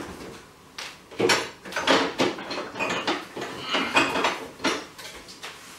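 Fridge door being opened, then a series of knocks, rattles and clinks as containers inside are moved and one is taken out, with a few brief ringing glassy clinks about four seconds in.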